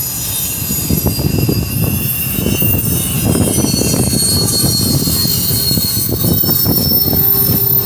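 Double-stack intermodal container cars of a freight train rolling past: a heavy, steady rumble of steel wheels on the rails, with thin high-pitched wheel squeal running over it.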